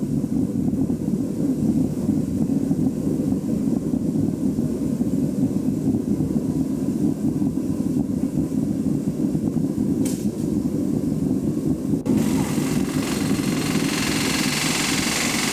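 Rivet-heating forge burning with a steady low rushing noise as it brings rivets up to heat for riveting. About twelve seconds in it changes to a harsher, hissier noise as work on the rivets begins.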